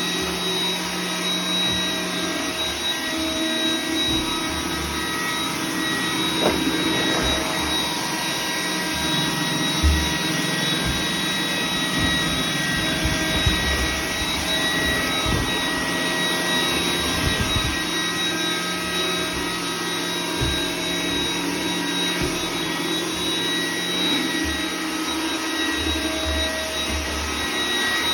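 iRobot Roomba 980 robot vacuum running as it cleans: a steady motor whir with a thin high whine, and occasional brief low thumps.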